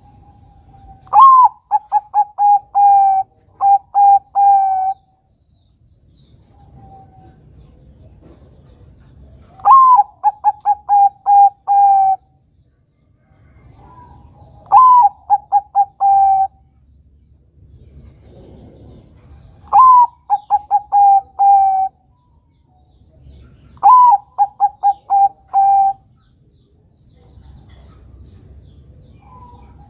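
Zebra dove (perkutut, Bangkok line) singing five cooing phrases. Each phrase is a sharp rising note followed by a fast run of short, even coos, with a soft lower note just before some phrases and faint low background rumble in between.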